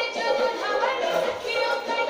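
Singing in high voices, the melody moving from note to note throughout.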